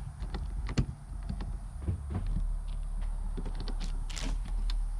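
Irregular clicks and knocks of an RV's exterior compartment door and latch being handled, the sharpest knock about a second in, over a steady low rumble.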